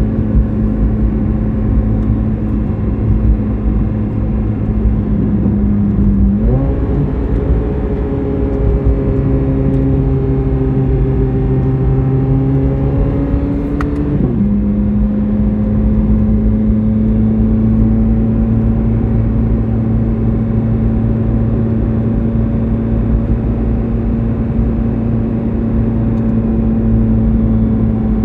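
Chevrolet Corvette C8 Z06's flat-plane-crank V8 running at a steady note over road noise. About six seconds in the engine pitch steps up and climbs slightly for about eight seconds, then drops suddenly back to the steady lower note.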